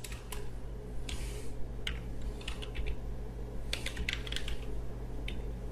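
Computer keyboard typing: scattered keystroke clicks, a few in quick succession at a time, over a steady low hum.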